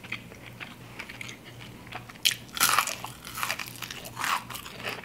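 Biting and crunching into a crispy fried chicken wing: a few faint mouth clicks, then from about two seconds in a run of sharp crunches as the fried skin is bitten.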